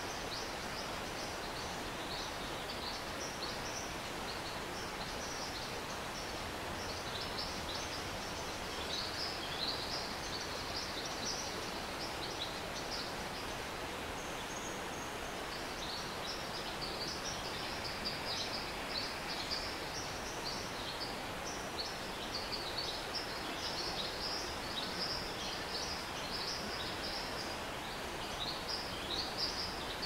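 A rainforest stream flowing with a steady rush, while birds chirp over it in a dense run of short, high chirps that thins out briefly about halfway through.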